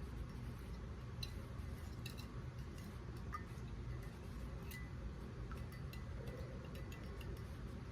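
Scattered light clinks and ticks of a spoon against a coffee mug as creamer is measured and stirred into coffee, over a faint steady low hum.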